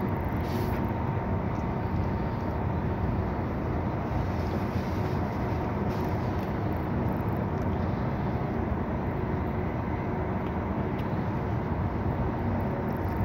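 Steady low rumbling noise with a faint constant hum above it, unchanging throughout.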